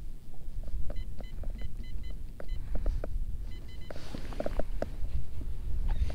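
Steady low wind rumble on the microphone over open water, with scattered light clicks and knocks. Several short runs of high electronic beeps come a few at a time in the first four seconds.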